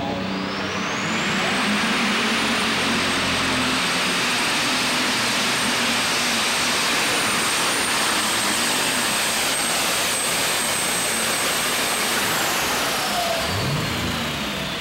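Alcohol-fuelled light super stock pulling tractor making a full pull at full throttle. A high turbocharger whine rises over the first two seconds, holds steady for about ten seconds, then falls away as the tractor slows to a stop near the end.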